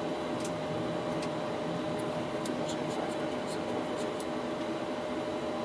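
Steady cockpit noise of a Boeing 737 while taxiing: an even hiss of air and fans with a steady hum underneath, and a few faint ticks.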